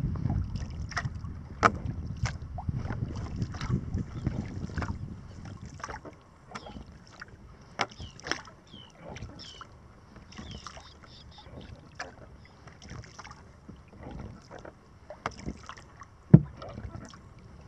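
Water splashing and trickling around a wooden kayak's hull as it is paddled along, with many small irregular drips and splashes. Wind rumbles on the microphone for the first few seconds, and there is a single sharp knock near the end.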